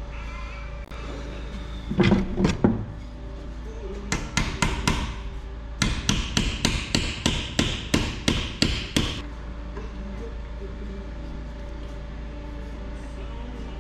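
Hammer striking metal at a bench vice holding a brake-pipe flaring tool: a few heavy blows about two seconds in, then a longer run of quick, evenly spaced taps, about three a second, stopping about nine seconds in.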